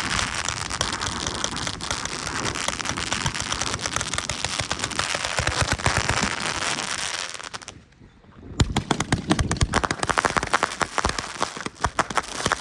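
A multi-shot crackle finale firework cake firing: dense crackling with rapid sharp pops and low launch thumps. The sound drops out briefly about eight seconds in, then comes back with louder, rapid sharp cracks.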